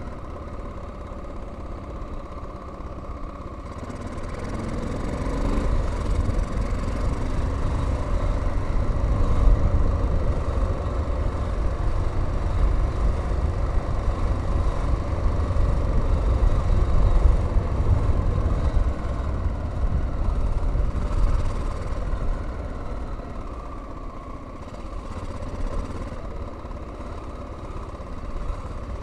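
Honda XL600R's 589cc single-cylinder engine running as the bike pulls away, rising in pitch and loudness about four seconds in. It pulls on steadily for a long stretch, then eases off near the end.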